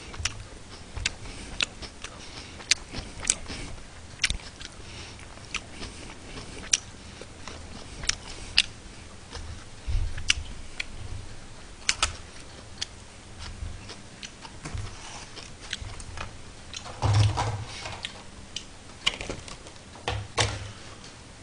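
Eating at close range: chewing, with short sharp clicks of wooden chopsticks against a plastic lunchbox tray, a few every second or two. A louder rustle of handling comes near the end.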